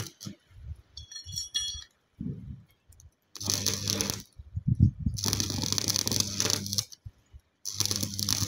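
Arc welding on a steel gate frame with a transformer stick welder: the arc crackles and sizzles in three runs of about a second each, over a low buzz. A short metallic ring comes about a second in.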